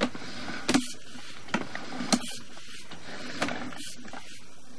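Sewer inspection camera's push cable being pulled back through the line, with irregular mechanical clicks and knocks over a steady hiss.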